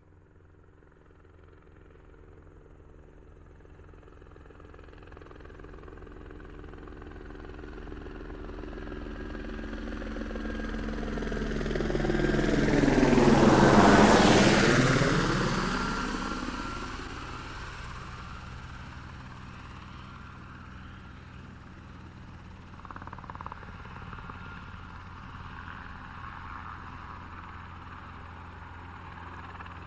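Helicopter approaching from faint to loud, passing overhead about halfway through, its pitch dropping as it goes by, then moving off and staying audible at a steady moderate level as it circles.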